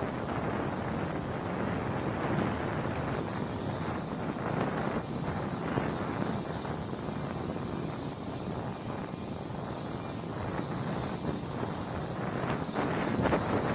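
MH-60R Sea Hawk helicopter turbine noise: a steady rushing din with a faint high whine, growing louder near the end.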